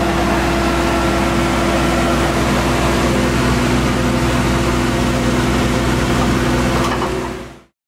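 An engine idling steadily, then cutting off abruptly near the end.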